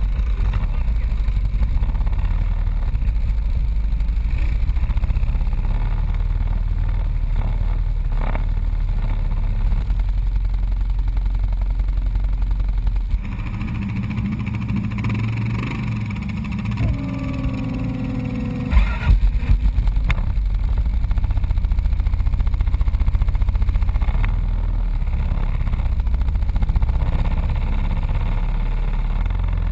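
ATV engines running over rough, boggy ground, with a heavy steady rumble. Midway the engine note rises and glides as it revs, and a few sharp knocks come about two-thirds through.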